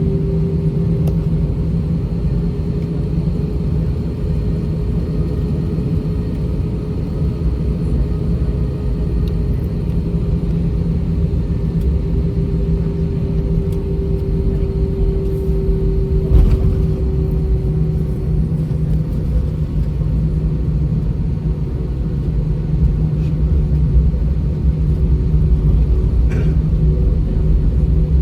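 Airbus A320-232 with IAE V2500 engines at takeoff thrust, heard from inside the cabin: a steady engine drone over the rumble of the wheels during the takeoff roll, with a short knock about halfway through.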